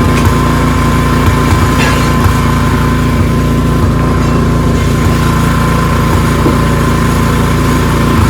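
Ariens 624E two-stage snowblower's small single-cylinder engine running steadily, with a steady high whine over it.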